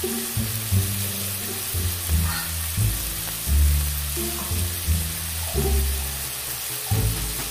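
Sliced onions sizzling in a hot wok with soy sauce, a steady frying hiss. Louder background music with a stepping bass line plays over it.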